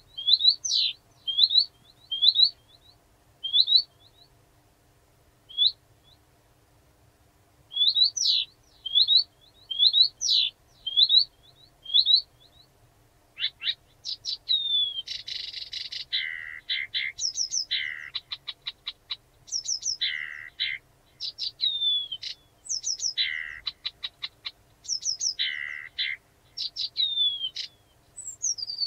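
Blyth's reed warbler singing. It starts with short rising notes repeated about once a second, broken by a pause. About halfway through it turns into a faster, fuller song of repeated phrases that mix dry rattles with falling whistles.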